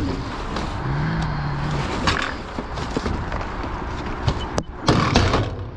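Junk and scrap knocking and scraping as it is shifted about in a dumpster, with a cluster of louder knocks about five seconds in.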